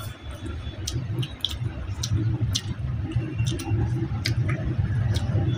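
A person chewing a mouthful of food, with small irregular wet clicks and smacks from the mouth over a low background rumble.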